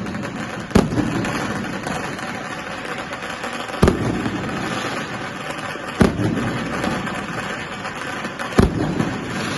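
Fireworks display: four loud bangs of aerial shells bursting, two to three seconds apart, over a continuous crackling din.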